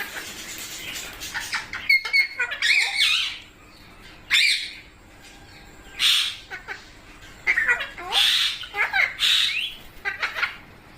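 Pet parrot calling with many short, loud calls whose pitch bends up and down, coming in clusters with brief pauses between.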